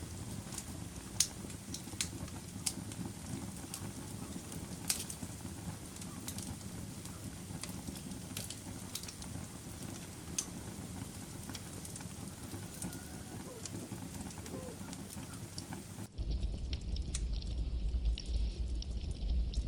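Wood fire crackling: scattered sharp pops and snaps over a steady low hiss. About 16 seconds in the sound changes abruptly to a louder crackle over a heavy low rumble.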